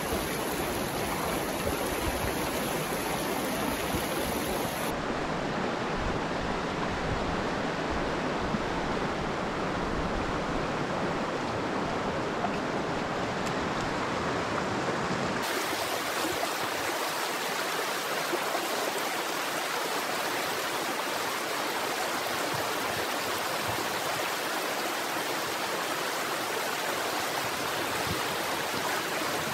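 Fast-flowing mountain river running high with snowmelt, rushing steadily over rocks and riffles. The tone of the rush shifts slightly about 5 and 15 seconds in.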